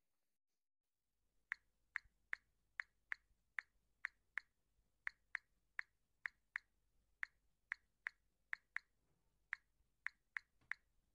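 Smartphone keyboard clicks while a text message is typed: about twenty short, sharp taps at an uneven pace, roughly two a second, starting about a second and a half in.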